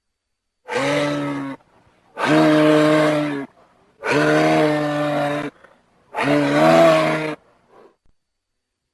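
Moose calling: four long, pitched calls, each lasting about a second or a little more, with short silent gaps between them.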